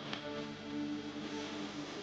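Background music of soft held notes, with a brief click just after the start.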